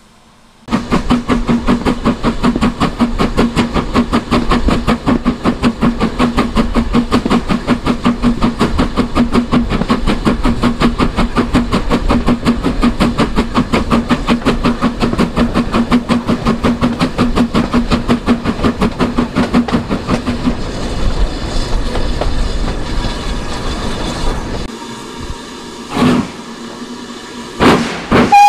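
Railway locomotive running with a rapid, even beat over a steady hum; the beat fades out about 25 seconds in and two sharp knocks follow.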